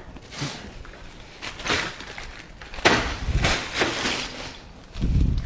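Kitchen freezer door opened and shut and a bag of ice handled: a string of knocks and plastic rustles, with a sharp knock about three seconds in and a dull thump near the end.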